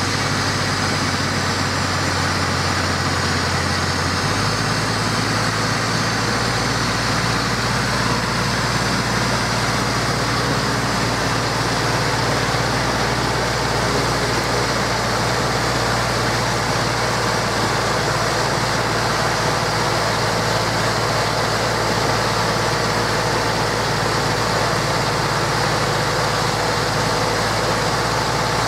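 Zetor Proxima 85 Power tractor's four-cylinder diesel engine running steadily under load as the tractor pulls a trailer up a dirt track. The engine note steps up about four seconds in.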